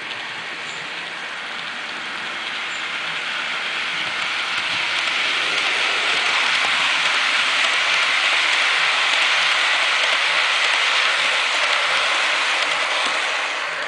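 HO-scale model container freight train running along the track: a steady whirring hiss of wheels on rails and motor that grows louder as the train approaches and stays loud as the wagons roll close by.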